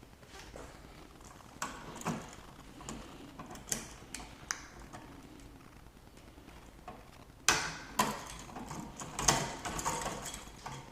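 Scattered clicks, taps and light scraping of hands and tools working on an old wall light switch as it is taken out, with a quick run of louder clicks and knocks in the last few seconds.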